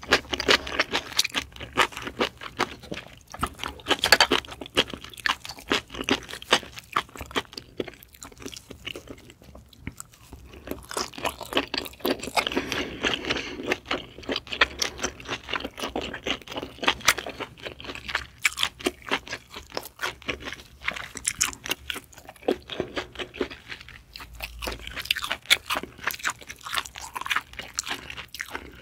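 Close-miked chewing of Japanese (Yesso) scallop meat: a dense run of quick mouth clicks and crunches, with a brief lull about eight seconds in.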